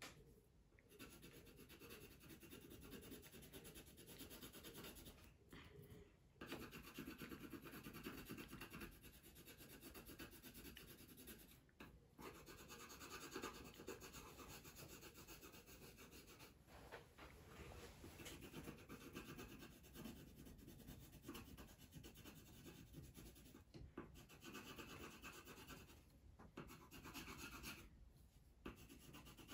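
Faint scratchy rubbing of a coloured pencil shading back and forth on paper, with a few brief pauses.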